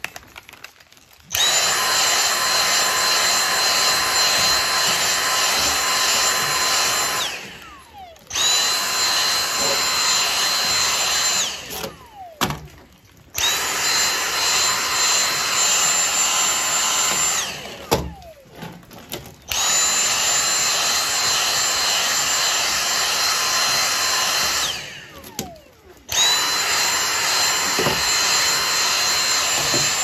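Dyson cordless handheld vacuum cleaner vacuuming an air-conditioner filter, switched on and off five times in runs of four to six seconds. Each run is a steady high whine that starts abruptly and falls in pitch as the motor spins down when the trigger is released.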